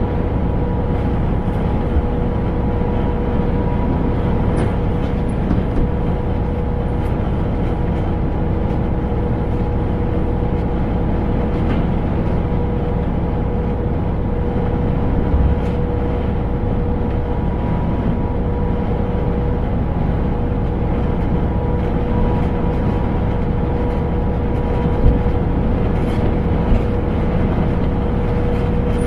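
Scania truck driving at a steady speed, heard from inside the cab: a constant engine drone and road rumble with a steady whine, and a few brief thumps.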